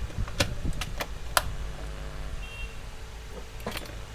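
A few sharp clicks and taps of small tools and parts handled on a phone-repair bench, three in the first second and a half and one more near the end, over the steady hum of an overhead fan.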